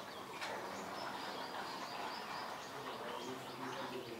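Faint outdoor background with small birds chirping in short, high, repeated calls.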